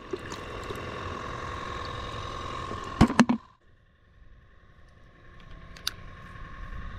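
Small aerator pump on a bait live well humming steadily, then a few sharp knocks about three seconds in. After a brief drop, a fainter steady hum goes on, with one click about six seconds in.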